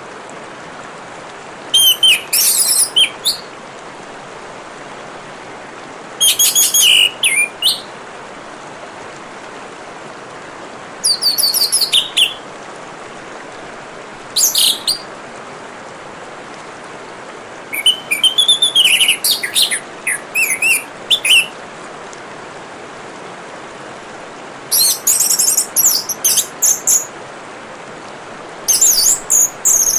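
Orange-headed thrush singing in about seven separate phrases of quick, high, varied notes, each a second or two long with pauses between, over a steady trickle of running water.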